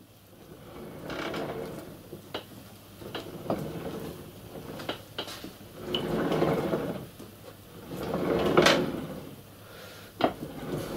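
Chassis of a miniature steam locomotive rolled back and forth by hand along a metal build track: its metal wheels rumble on the rails in four swells, with sharp clicks and knocks in between.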